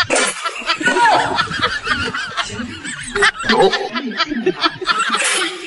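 Canned laughter: a dubbed-in laugh track of several people snickering and chuckling together.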